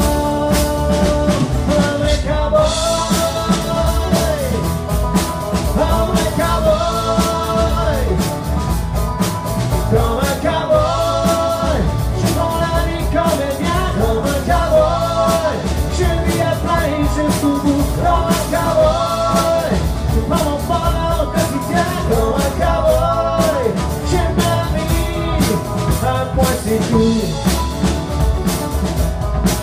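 Live country band playing: acoustic guitar, upright bass and drums, with a wavering melody line carried over them.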